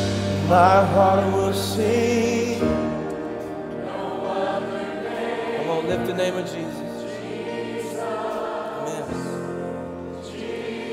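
Church choir and worship band performing a slow contemporary worship song: sustained chords under choir voices.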